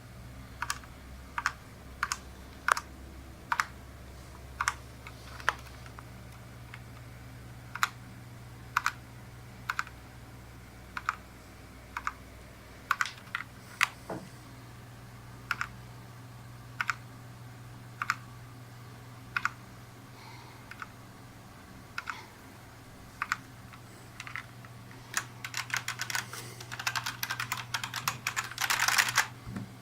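Key presses on a Cougar Ultimus mechanical keyboard with Cherry MX Red switches: single keystrokes clicking one at a time, about one every second or less, then a quick burst of fast typing near the end. A low steady hum runs underneath.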